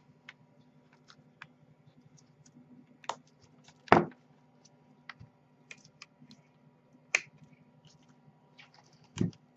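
Scattered small sharp clicks and taps of glass and plastic as a replacement iPad 2 digitizer glass panel is set down and pressed onto the tablet's frame. The loudest click comes about four seconds in, and a faint steady low hum runs underneath.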